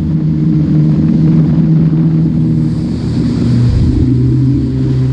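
Yamaha WaveRunner FX Cruiser HO's 1.8-litre four-stroke engine and jet drive running under way, its note shifting around three to four seconds in as the throttle changes, with wind and water noise over it.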